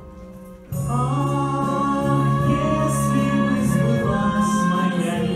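Music starts abruptly under a second in, a choir singing long held chords, loud from the first note; before it only a faint steady hum.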